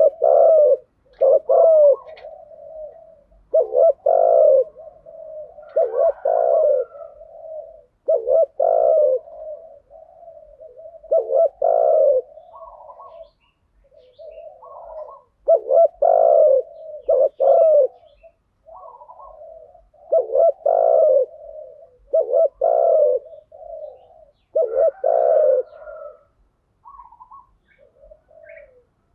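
Spotted doves cooing: deep, repeated coo phrases come about every two seconds, with softer, higher notes between them. It is the stirring 'gù' and calling song that keepers play to set off their own birds.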